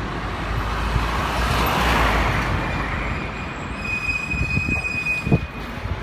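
Street traffic heard from a moving bicycle: a vehicle passes, loudest about two seconds in, over a low steady rumble. A high thin squeal holds for about three seconds in the second half, and a few short knocks come near the end.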